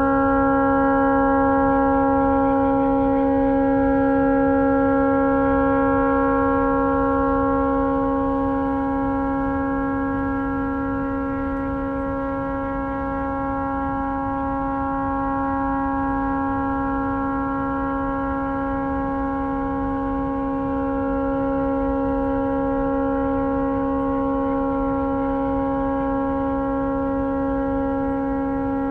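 A tugboat's horn stuck on, sounding one unbroken steady chord of several pitches, its loudness swelling and easing slightly. The horn has malfunctioned and cannot be shut off.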